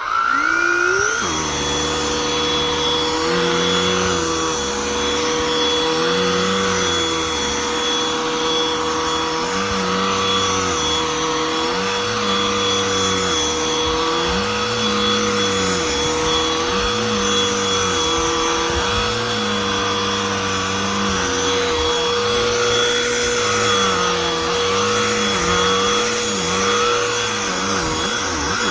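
Cordless handheld vacuum switched on, its motor spinning up within the first second to a steady high whine. It then runs continuously while the pitch of its lower hum dips and rises every couple of seconds.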